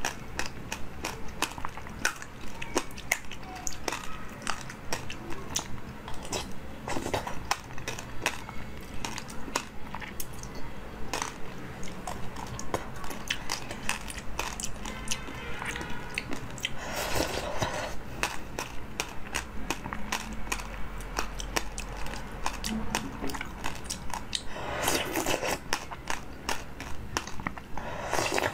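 Close-miked eating of seedy passion fruit jelly: a dense run of small sharp crunches and wet chewing clicks as the seeds are bitten, with a metal spoon scooping from a glass bowl. Two longer, noisier stretches come about two thirds of the way through and near the end.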